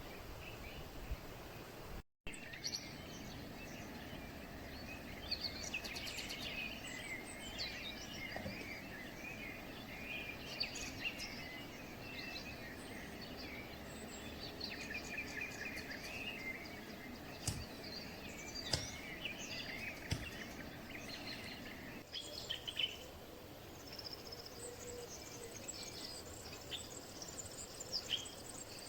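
Several birds chirping and calling, many short scattered calls over a steady background hiss. The sound drops out completely for a moment about two seconds in.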